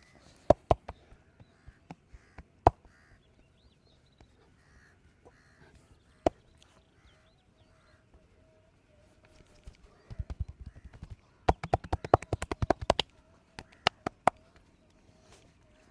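Percussive hand massage: single sharp slaps on the body now and then, then about ten seconds in a fast run of rapid tapping strokes lasting about three seconds, followed by two more hard strokes.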